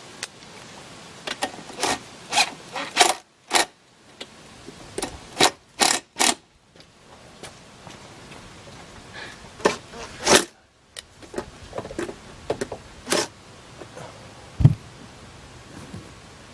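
Hand work on a stopped outboard motor: a run of sharp clicks, scrapes and knocks from parts and tools being handled, coming in small clusters, with one low thump near the end.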